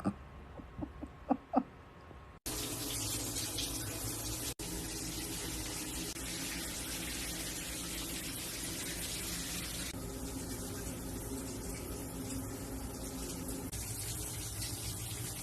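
Steady rush of running water, as from a tap, starting abruptly about two seconds in, with one brief break shortly after.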